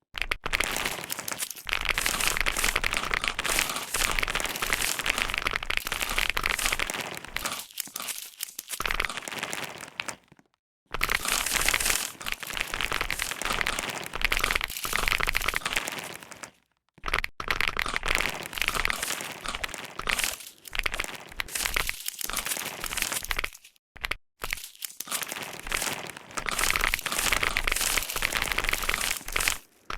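Keyboard keys being typed on rapidly, a dense run of clicks that stops briefly a few times and then resumes.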